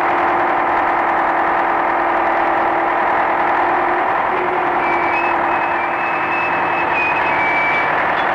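Crawler dragline excavator working, its bucket hauled through broken rock: a loud, steady machinery drone, with a high squeal coming and going from about five seconds in.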